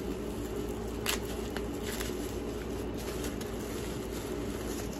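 Plastic bubble wrap being unwrapped by hand from a small oil bottle: a few soft crinkles and crackles, the clearest about a second in, over a steady low hum in the room.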